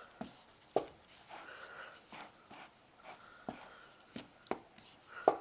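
Cake batter being stirred in a mixing bowl, with a faint scraping and the utensil knocking sharply against the bowl about six times at uneven intervals; the loudest knock comes near the end.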